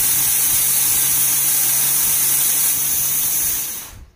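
Electric kitchen mixer grinder running, crushing grains: a loud, steady whirring rush with a low motor hum under it, which dies away and stops near the end.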